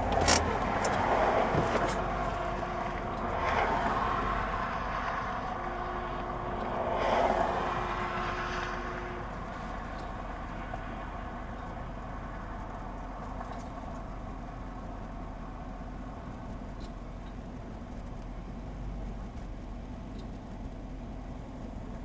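Camper van's engine idling, heard from inside the cab, with a couple of knocks in the first two seconds.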